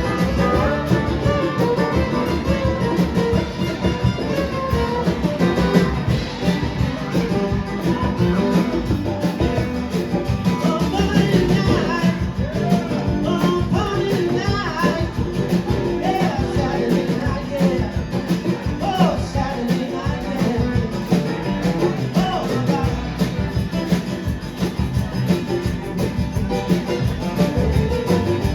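Live band playing a song led by guitar, at a steady loud level.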